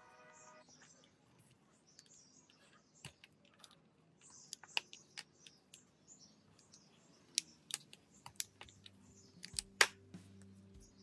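Small scissors snipping through clear hot-melt glue sticks: a scattered run of sharp clicks and snaps, with cut pieces tapping onto a wooden workbench. The loudest snap comes near the end.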